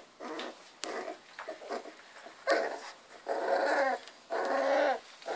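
Three-week-old miniature bull terrier puppies play-fighting, growling and whining in small voices: a run of short calls, then three longer ones of up to a second each in the second half.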